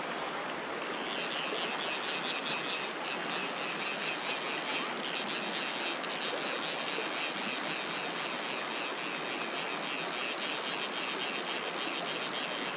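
Shallow river water rushing steadily over rocks, with insects calling in a fast pulsing chirr from about a second in until near the end, over a steady high-pitched whine.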